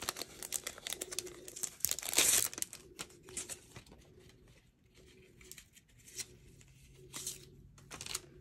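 Clear plastic packaging sleeve of an embossing folder crinkling and tearing as it is handled and opened. The loudest rustle comes about two seconds in, followed by quieter, intermittent rustles and light taps.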